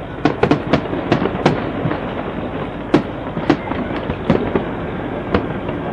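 Fireworks going off: a quick run of sharp bangs in the first second and a half, then single bangs every half second to a second, over a steady background hiss.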